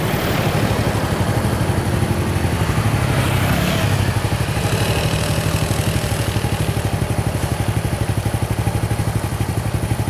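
A vehicle engine idling steadily, with a low, fast, even pulse.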